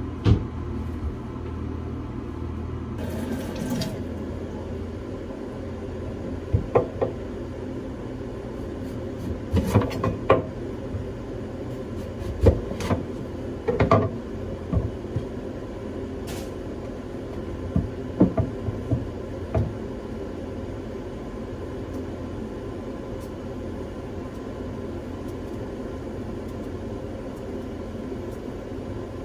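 Scattered clinks and knocks of things being handled, over a steady low hum; the knocks stop about twenty seconds in.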